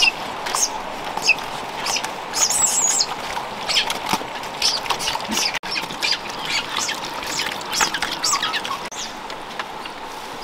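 Two pigs eating fish scraps from a wicker basket: a rapid, irregular run of wet chewing and smacking clicks, thinning near the end.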